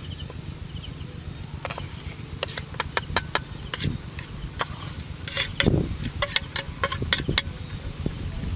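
Metal spoon scraping and clinking against a ceramic plate: runs of sharp clicks in two clusters, with a few dull knocks, over a low steady rumble.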